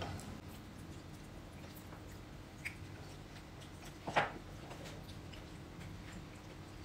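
Quiet eating sounds at a table: soft chewing and mouth sounds with a few light clicks, the clearest about four seconds in.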